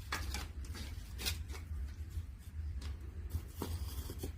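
Wood fire burning in a traditional wood-fired kiln: a low steady rumble with scattered short crackles.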